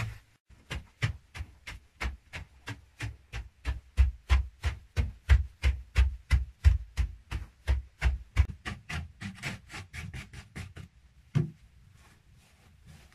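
A hand digging tool striking and chipping into a hard earth wall, a quick steady run of dull strikes about three a second. The strikes stop about eleven seconds in, after a short pause and one last blow.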